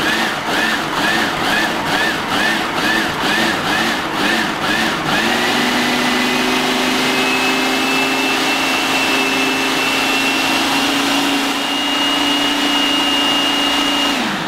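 Food processor motor running, chopping a thick load of pumpkin, carrot pulp and apple pulp into crust dough. For the first five seconds the sound wobbles about three times a second as the mixture tumbles, then settles into a steady, even whir with a faint whine, and switches off near the end.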